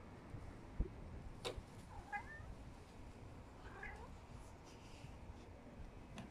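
Cat meowing twice, two short calls about two seconds in and again near four seconds. A low thump about a second in is the loudest sound.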